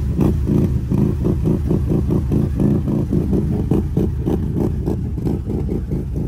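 ATV engine revving hard under load while its tyres spin and churn through deep mud, a rapid rhythmic pulsing with splattering.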